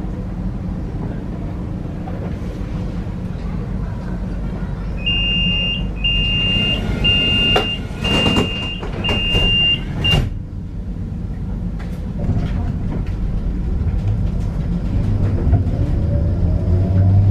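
Tram standing at a stop with a steady low hum. About five seconds in, a series of high warning beeps sounds for several seconds as the doors close, with a few knocks, and near the end the traction motors start with a rising whine as the tram pulls away.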